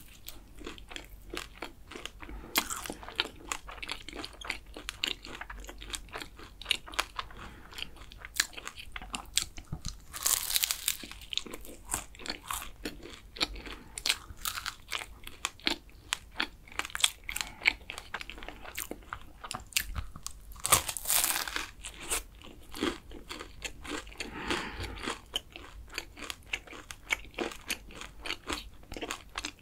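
Close-miked crunching and chewing of crisp, flaky kouign-amann pastry, a steady run of small crackles. There are louder crunchy bites about ten seconds in and again around twenty-one seconds in.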